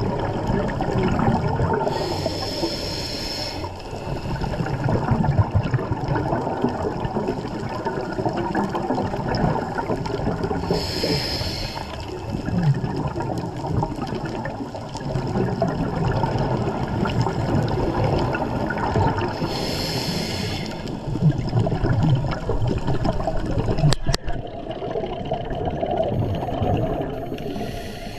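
Scuba diver breathing through a regulator underwater: three hissing inhales, about every nine seconds, with bubbling, gurgling exhalation in between.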